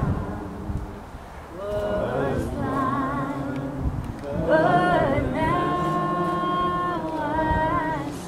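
A singer's voice with vibrato, slow and unhurried, with a long held note a little past halfway.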